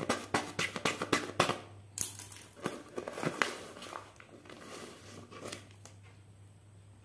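Paper being slit with a small plastic cutter in quick strokes, about five sharp ticks a second, then, about two seconds in, paper tearing and crinkling as it is ripped open, fading to faint rustling.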